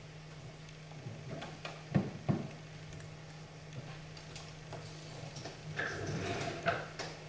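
Wooden chess pieces knocking and clicking on a wooden board as moves are played: two sharp knocks about two seconds in, then lighter taps and clicks near the end, over a steady low hum.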